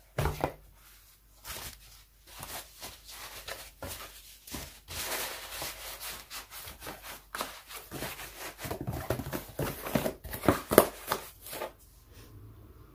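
Cardboard box being handled as it is packed and its flaps folded shut: irregular rustling, scraping and crinkling of cardboard and packing material, with scattered knocks and one loud knock near the end.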